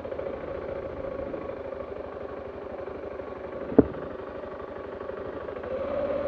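Dual-sport motorcycle engine running steadily, with one sharp click about four seconds in; the engine note picks up and gets louder near the end.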